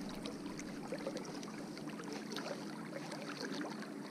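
River water lapping and rippling close to the microphone, with scattered small ticks and drips over a steady low hum.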